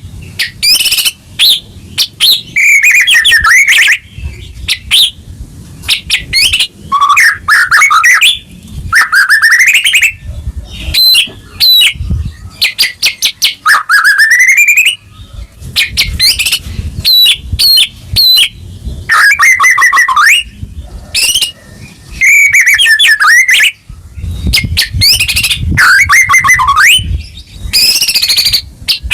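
White-rumped shama (murai batu) singing a loud, varied song in bursts of one to two seconds with brief gaps: rising whistled glides, fast trills and rapid runs of repeated notes.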